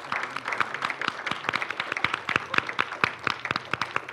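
Audience applauding, many hands clapping at once in an irregular patter, with the two people on stage clapping along.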